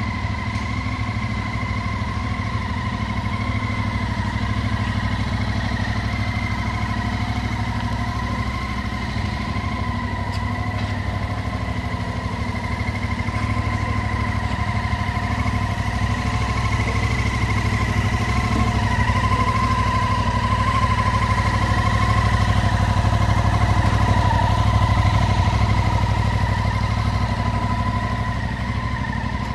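Yamaha Tracer 700's parallel-twin engine idling steadily.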